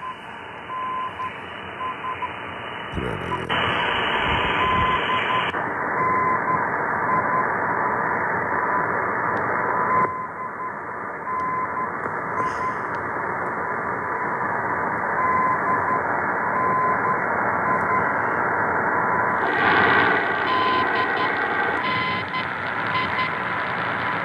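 Static and band noise from a communications receiver's speaker as it is retuned, with a steady whistle tone running through it and breaking in and out. The hiss changes brightness in steps as the filter and mode are switched, opening up near the end when the receiver goes to AM.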